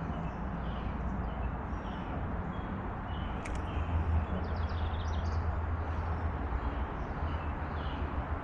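Steady outdoor noise dominated by a low rumble of wind on the microphone, with a few short, faint bird chirps scattered through it.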